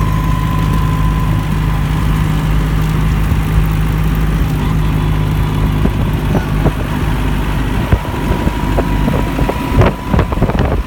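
A Jeep's engine running at a steady speed, a constant low drone, with a run of short knocks and rattles in the last few seconds.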